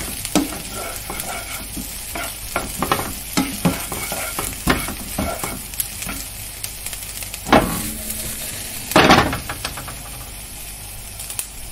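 Chicken pieces sizzling in hot oil in a pan, with a spoon scraping and stirring as the marinade paste is poured in. There are many short clicks and scrapes over a steady hiss, and two louder bursts of hissing a little past halfway, about a second and a half apart.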